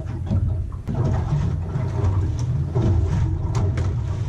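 Gusty low rumble of wind on the microphone aboard a small fishing boat rocking in passing wakes, with a couple of sharp knocks.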